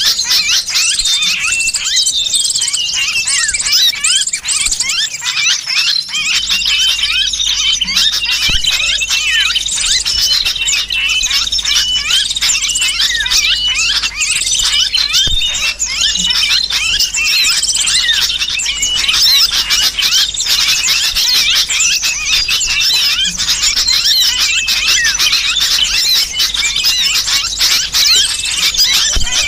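Bird-trapping lure call: a dense, non-stop chorus of agitated small-bird chirps and squeals, mixed with the distress squeals of a trapped sooty-headed bulbul. A faint low hum joins about six seconds in.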